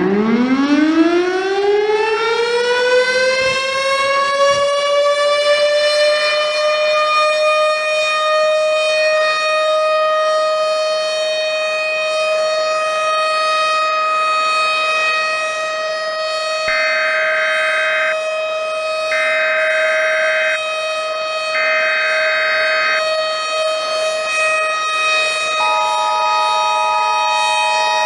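Civil defense siren winding up from a low pitch over about six seconds, then holding a steady wail. Over it, three short bursts of EAS header data tones sound about two-thirds of the way in, and near the end the two-tone EAS attention signal begins.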